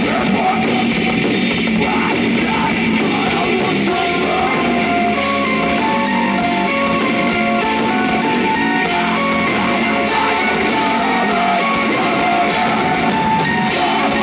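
Metal band playing live: distorted electric guitars over a drum kit with cymbals, joined about four seconds in by a melodic line of held high notes.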